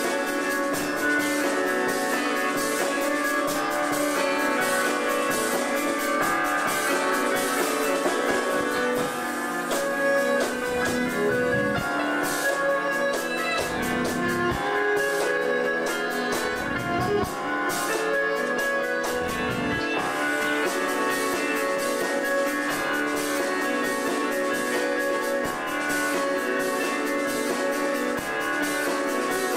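A live chamber-rock band playing an instrumental: bowed violins holding sustained notes over guitar and drums.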